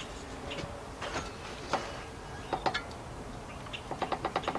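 Scattered light metal knocks and clanks from an engine hanging on a hoist as it is lowered and shifted into the engine bay. A quick run of rapid clicks follows near the end.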